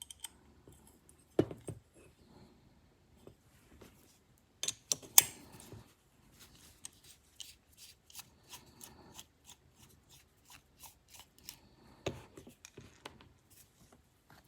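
Small sharp clicks and taps of knife parts and a driver being handled during disassembly of a titanium folding knife, with a few louder clicks and a run of quick faint ticks in the middle.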